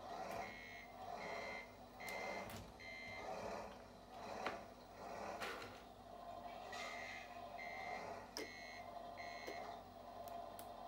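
Reversing beeper of an RC Mercedes Actros truck, electronic beeps sounding four times about 0.8 s apart, then after a pause four more, as the truck backs up. A steady hum runs underneath, with a sharp click about halfway through.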